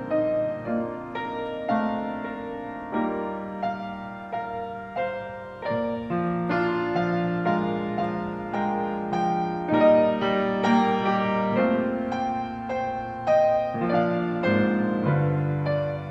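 A grand piano playing a slow piece: melody notes struck over held lower chords.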